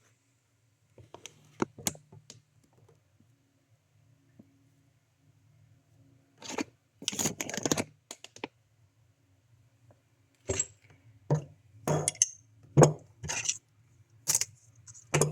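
Intermittent handling noises, short scrapes, clicks and tearing-like rustles of hands working with objects, over a faint steady low hum.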